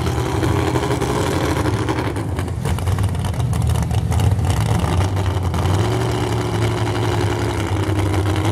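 Mud truck's engine running loud and steady at a fairly even speed, with a slight rise in pitch about six seconds in.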